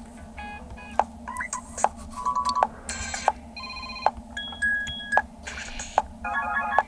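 A Toscido M863 phone's speaker plays a run of different ringtones, each for only a moment: short beeping and melodic tone patterns that change about every half second to second. Each new tone starts with a sharp click.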